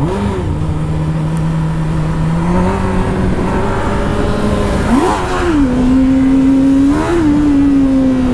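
Honda Hornet's inline four-cylinder engine under way, without its loud aftermarket exhaust. It pulls away with a rise in pitch, steps up in revs a few seconds in, then gives two brief up-and-down revs about five and seven seconds in before settling at a higher steady pitch.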